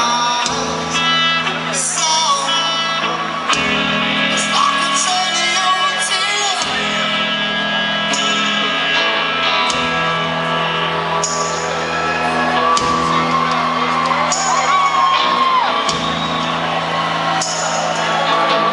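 Live rock band playing loud in an arena, recorded from the audience: electric guitars, a bass line that holds each note for a few seconds, drums with cymbal crashes, and a male lead vocal, all echoing through the hall.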